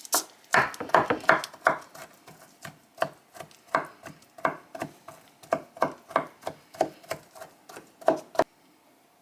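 Kitchen knife chopping cooked chickpeas on parchment paper: quick, even knocks about three a second that stop near the end.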